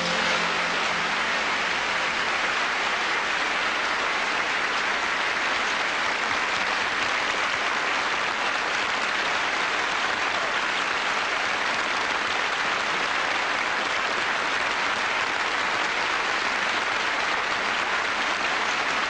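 Audience applauding steadily at the close of a song, the clapping starting just as the last music dies away.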